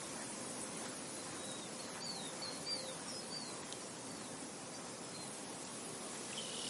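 Steady hiss of wind and insects, with a small bird giving a quick run of short, high chirps about two to three seconds in.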